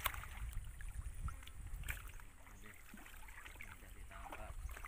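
Hands sloshing and splashing in shallow muddy water while groping along the bottom for fish, with a few short splashes.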